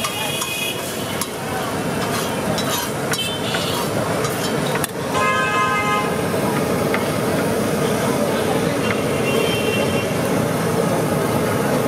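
Busy street ambience: steady traffic noise with vehicle horns honking, one near the start and a longer one about five seconds in, with a few sharp clicks.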